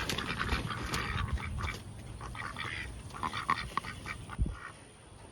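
Domestic ducks quacking in short, irregular calls while being handled. There is low rumbling in the first two seconds and a dull thump about four seconds in.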